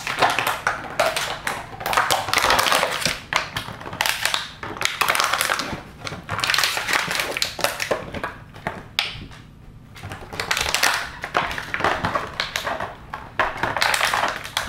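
Empty plastic water bottle crinkling and crackling as a puppy chews and paws at it, in irregular bouts, with a short quieter spell about nine seconds in.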